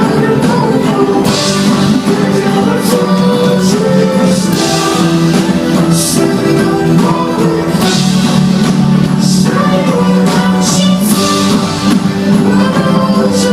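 Rock band playing loudly live in a large hall, with held chords and repeated cymbal crashes over the drums.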